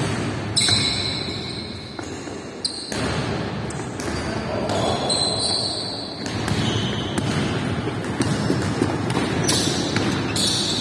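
Basketball game sounds on a wooden gym floor: the ball bouncing and players moving on the boards, with several sharp thuds.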